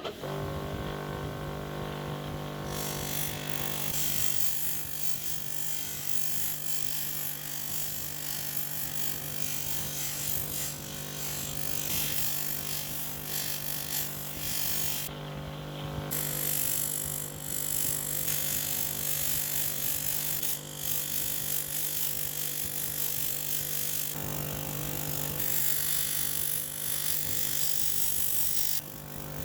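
An electric power tool running steadily with a constant motor hum while it works metal, with a rough grinding-and-scraping noise over it that briefly lets up a couple of times.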